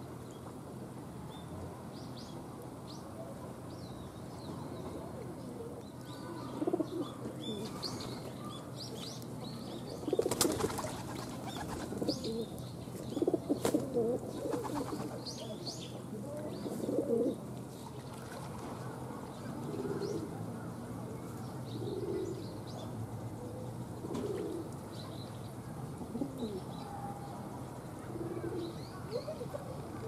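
Pigeons cooing, loudest in a cluster of phrases through the middle, then short coos about once a second toward the end, with small birds chirping faintly.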